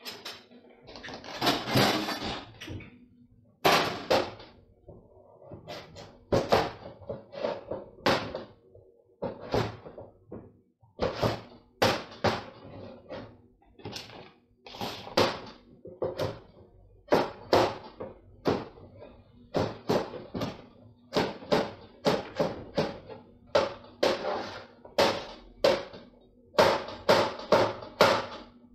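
Kitchen knife knocking on a cutting board as a carrot is cut into pieces, in an irregular series of sharp chops, one to three a second. A longer clatter comes about a second in.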